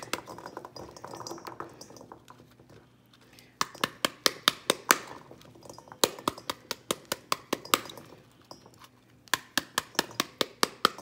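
The heavy handle of a knife tapping the rind of a cut pomegranate half held upside down over a stainless steel bowl, knocking its seeds loose. The taps come in runs of quick knocks, about four or five a second, three runs loud with short pauses between.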